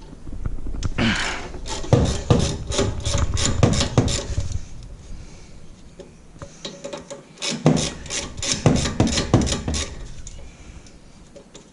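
Hand tools working on a car's front brake caliper: two runs of rapid clicking and rasping, a few strokes a second, with a pause between.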